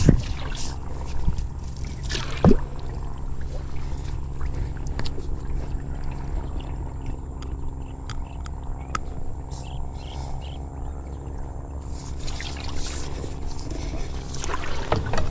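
Bamboo pole pushing a small plastic boat through swamp water and floating water hyacinth: water dripping and trickling off the pole, with scattered small clicks and splashes. One sharp knock about two and a half seconds in.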